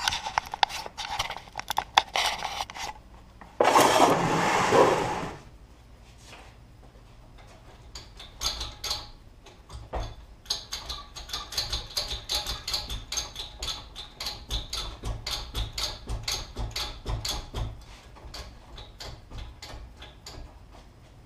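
Hydraulic pump worked by its lever to pressurise a ram that is pushing a welded frame back into square: a long run of quick clicks and knocks, several a second, for about ten seconds. Near the start there is a loud rush of noise lasting a second or two.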